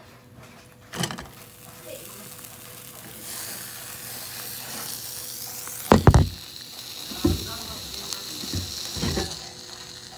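A grilled cheese sandwich sizzling in a frying pan, a steady hiss that starts about three seconds in. A sharp knock comes about six seconds in, with a few softer knocks after it.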